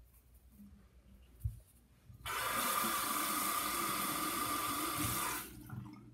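Bathroom sink tap turned on, water running steadily into the basin for about three seconds and then shut off, after a short knock.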